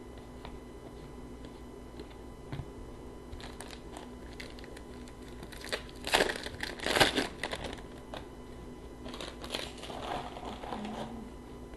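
A trading card pack wrapper being torn open and crinkled in the hands. It is loudest from about six to seven and a half seconds in, with more crinkling from about nine to eleven seconds.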